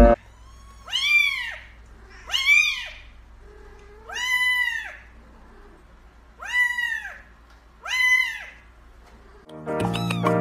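Grey kittens meowing: five high, short mews spaced one to two seconds apart, each rising and then falling in pitch. Music comes in near the end.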